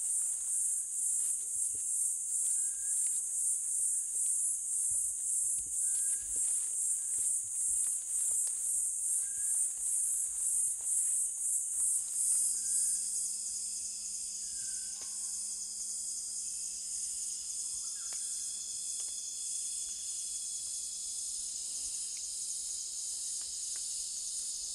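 Rainforest insect chorus: a loud, high-pitched, rapidly pulsing trill that changes about halfway through to a steadier, slightly lower buzz. Faint short whistled notes recur here and there.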